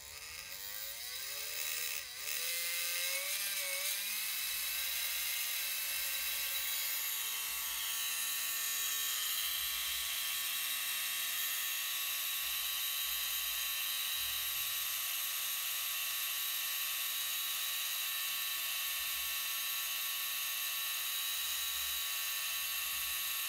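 Small brushed DC motor salvaged from a drill, spinning the magnet rotor of a washing-machine drain pump used as a generator. It whines up in pitch over the first two seconds or so as its supply voltage is raised, then runs with a steady high whir.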